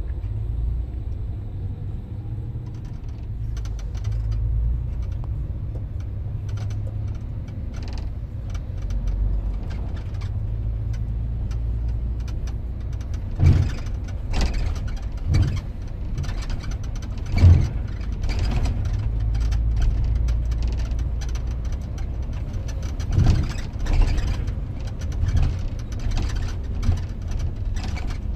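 Bus engine and road noise heard from inside the upper deck of a double-decker bus: a steady low rumble, with several sharp knocks and rattles from about halfway through.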